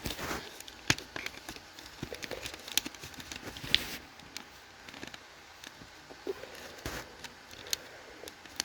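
Scattered light clicks and taps of a plastic smoke alarm and its mounting clip being handled.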